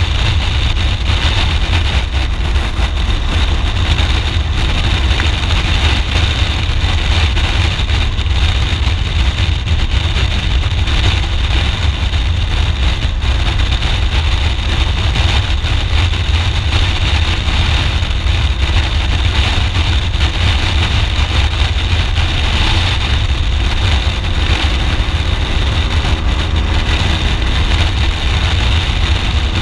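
BMW R 1200 GS Adventure riding at road speed: a steady wind rush on the microphone over the boxer-twin engine. Near the end the engine note rises.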